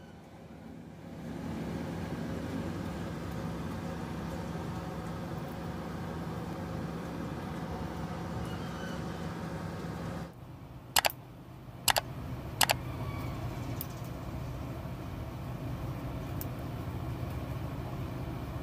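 Steady low mechanical hum that changes character about ten seconds in, with three sharp clicks shortly after.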